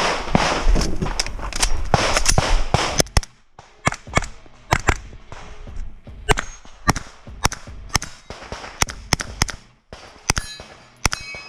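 Pistol-caliber carbine fired in rapid strings during a practical-shooting stage. A dense volley comes first, then after a short break single shots and pairs come about one to two a second, with a pause near the end.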